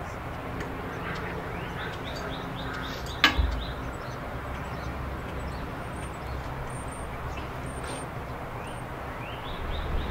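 Birds chirping repeatedly in short rising notes over a steady low background hum, with one sharp click about three seconds in.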